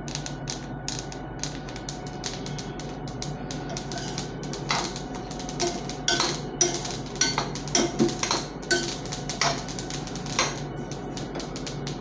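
Black sesame seeds popping and crackling as they dry-roast in a kadai, a dense run of fine clicks that shows the seeds are roasting through. From about four seconds in, a steel ladle stirs them, scraping and clinking against the pan.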